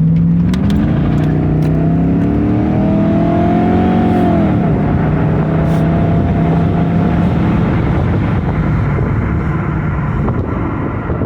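Ford Mustang GT's V8 engine pulling under acceleration, its pitch rising for about four seconds, then dropping suddenly and running steadily at cruise, with road noise underneath.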